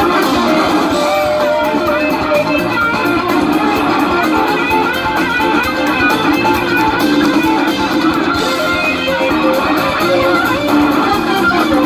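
Live rock band playing loud: two electric guitars play lead lines over drums, with the cymbals keeping a steady beat.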